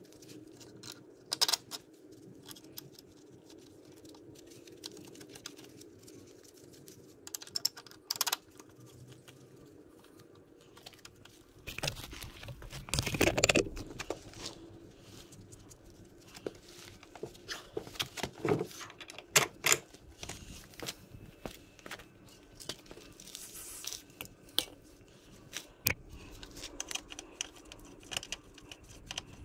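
Workshop handling noises from hand tools and metal parts: scattered sharp clicks and knocks. About halfway through there is a louder stretch of rustling and scraping, and a faint steady hum sits under the first part.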